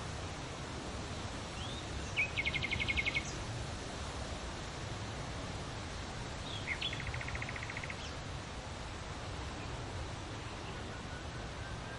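Birds chirping, with two rapid trills about 2 and 7 seconds in and a few short rising chirps, over a steady outdoor background noise.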